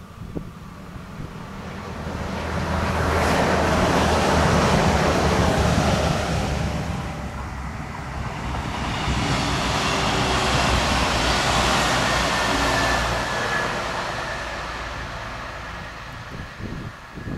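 SNCF AGC regional multiple unit passing at speed: the rumble and hiss of wheels on rail swell to a peak, dip briefly, swell again, then fade away.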